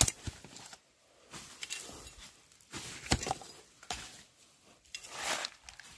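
A blade chopping off the end of a palm heart: a few sharp, separate chops with pauses between them.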